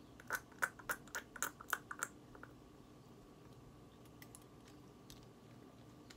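A quick run of about ten faint, small wet clicks over the first two seconds or so: mouth, tongue and lip clicks as a dose of pepper tincture is tasted on the tongue. Then only faint room tone.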